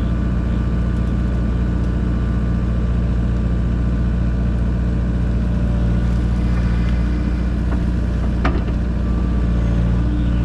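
Diesel engine of a Kubota mini excavator running steadily at work, with a couple of sharp knocks in the last third.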